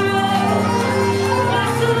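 Live church worship music over a PA: a woman sings lead into a microphone, holding long notes, with backing singers and band accompaniment.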